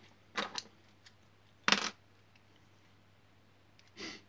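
Wilko Blox plastic building bricks clattering as a hand rummages through a loose pile of pieces on a table: three short clatters, the loudest about two seconds in.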